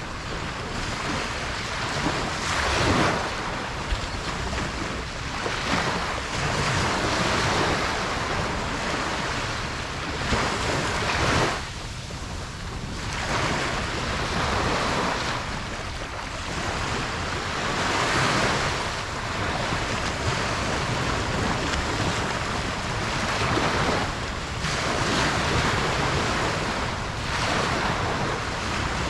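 Ocean waves breaking and washing up a beach, a continuous surf that swells and falls back every few seconds, with wind on the microphone.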